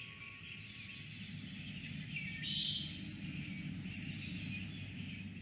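A small songbird calling with a few short, high chirping notes over a low, steady outdoor rumble.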